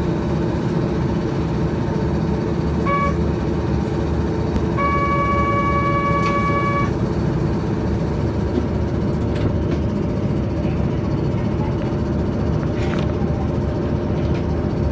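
Steady hum of a Kobe Electric Railway train standing at a platform. A buzzer-like tone sounds briefly about three seconds in, then again for about two seconds from about five seconds in. A few faint clicks come later.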